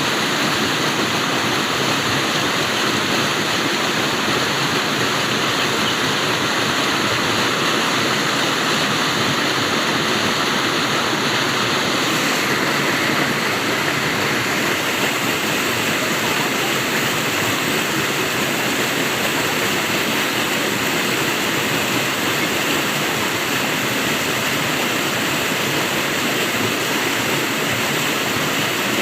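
Flowing water rushing steadily, an unbroken splashing hiss with a small change in its high end about twelve seconds in.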